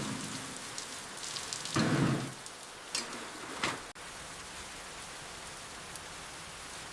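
Steady rain falling, an even hiss of rain. In the first few seconds a few brief louder sounds rise above it, the loudest about two seconds in. The rain then carries on alone.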